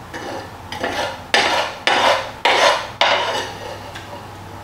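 Scraping in a cast iron frying pan as sliced potatoes and roast beef in gravy are tipped out into a ceramic dish: about five rough scrapes in quick succession, then a few soft scuffs near the end.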